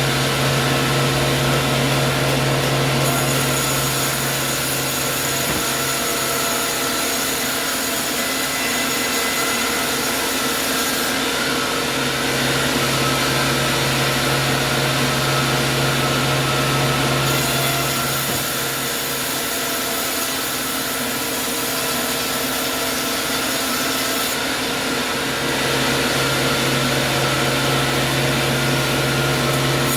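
A sawmill saw running and cutting through a log, a continuous machine whine over a rasping saw noise. Its tone shifts every several seconds as the cut goes on.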